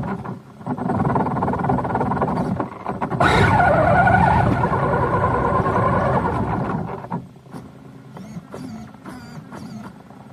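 Traxxas Slash RC short-course truck driving on rough asphalt, heard from a camera mounted on it: electric motor and drivetrain whining, with tyre rush over the pavement. The whine shifts in pitch with speed. The truck slows and goes much quieter about seven seconds in, leaving a few small knocks.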